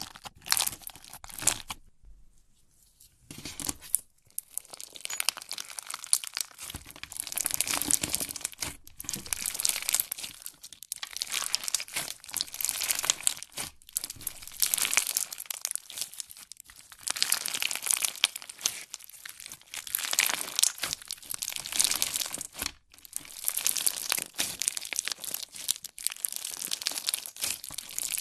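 Clear slime packed with pearl beads, foam balls and water beads, squeezed and kneaded by hand: dense crackling made of many small clicks, with a short pause about two seconds in.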